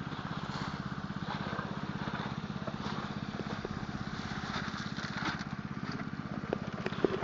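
Small engine-driven water pump rated at 150 gallons per minute, running steadily throttled down to about a quarter throttle, with a fast, even firing pulse.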